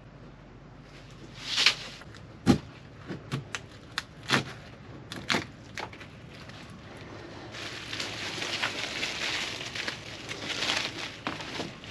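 Several sharp knocks and scrapes in the first half, then a plastic trash bag rustling and crinkling for a few seconds.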